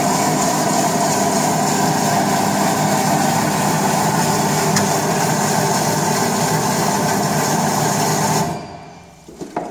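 Şahveli GDM-06 tantuni dicing machine running steadily with a loud hum, then switched off about eight and a half seconds in and quickly winding down, followed by a few light knocks.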